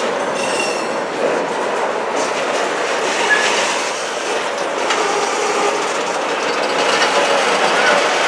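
Railcars of CN train 509 rolling along the track: a steady noise of wheels on rail, with a few short, faint wheel squeals.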